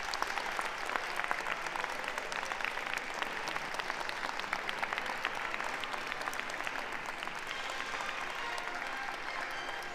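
Audience applauding: steady clapping from many hands, easing off slightly near the end.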